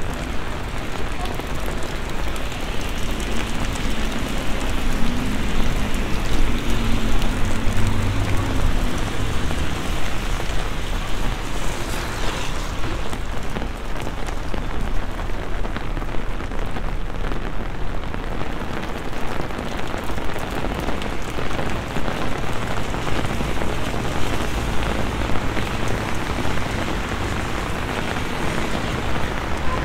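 Heavy rain pouring down on a wet city street and pavement, a dense steady hiss of drops on the surfaces and puddles. A low rumble swells and fades between about four and nine seconds in.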